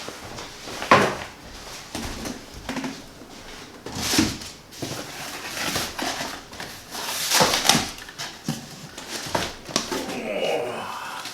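Packaging being handled and opened: irregular rustling and crinkling with a sharp knock about a second in.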